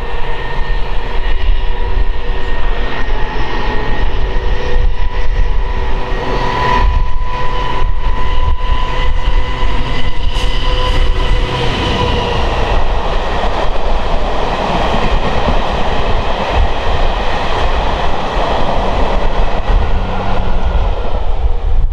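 GBRf Class 59 diesel locomotive 59003 approaching and passing under power, its EMD two-stroke V16 giving a steady engine note with a whine. About twelve seconds in the engine note fades and the wheel and rail noise of the passing coaches takes over.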